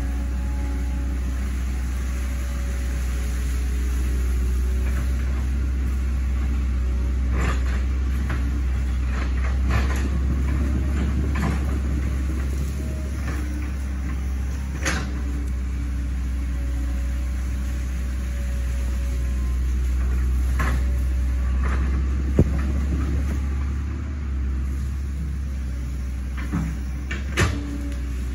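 Hitachi Zaxis 110 excavator's diesel engine running steadily at working speed, with scattered short knocks and clanks: a sharp one past the middle and a quick cluster near the end.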